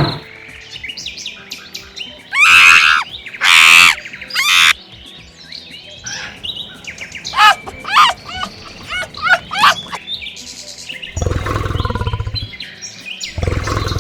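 Birds chirping and calling in short separate bursts, with a quick run of chirps in the middle. Near the end come two low, pulsing rumbles.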